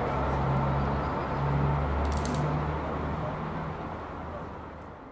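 Low rumble of a train hauled by the steam locomotive 60163 Tornado, heard as it climbs away into the distance, with a brief cluster of clicks about two seconds in. The sound dies away over the last two seconds as it fades out.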